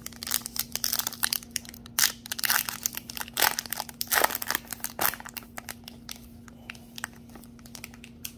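Foil trading-card pack wrapper being torn open and crinkled in the hands: a dense run of sharp crackles for about five seconds, then only faint scattered rustles as the cards come out. A steady low hum runs underneath.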